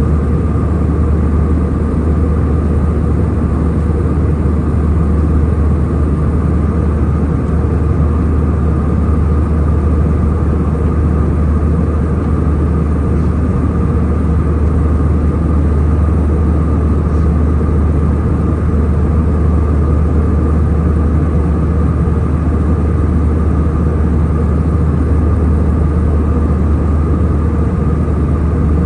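Steady cabin noise of an airliner in flight: engine and airflow noise with a deep constant hum and a faint steady higher tone, unchanging throughout.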